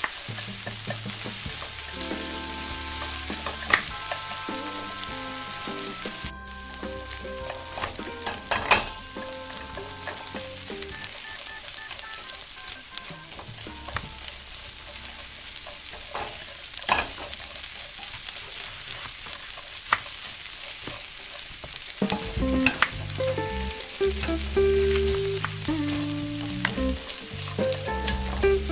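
Strips of meat frying in oil in a miniature pan: a steady high sizzle with scattered pops and clicks.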